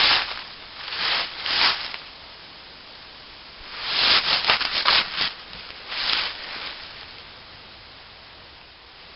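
Slow footsteps rustling through leaf litter: a few separate steps, a quick cluster of rustles about four seconds in, then one more and a quieter stretch.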